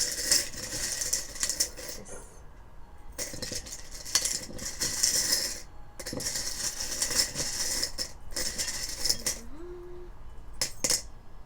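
A handful of small charms rattling and clinking together as they are shaken, in three long bursts, then a few separate clicks near the end.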